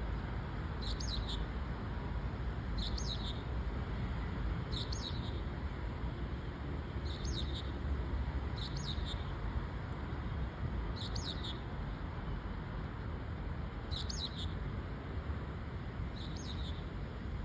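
Black bulbul calling: eight short, high calls repeated about every two seconds over a steady low background rumble.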